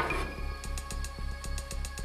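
Background music with a steady beat, with metal spatulas scraping across a steel griddle top as food is mixed.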